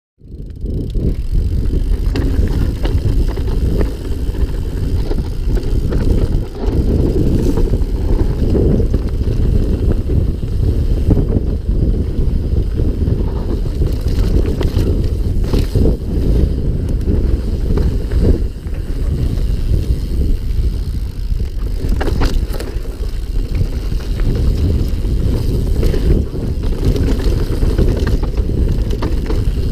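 Mountain bike descending a rocky dirt trail, heard from a handlebar-mounted action camera: a steady heavy rumble of wind buffeting the microphone and tyres running over dirt and rock, broken by frequent sharp knocks and rattles from the bike over bumps.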